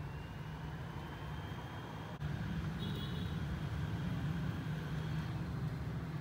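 Handheld hot-air gun blowing steadily, its fan running with a low hum, heating the tablet's screen to soften the adhesive under the LCD. The hum gets a little louder about two seconds in.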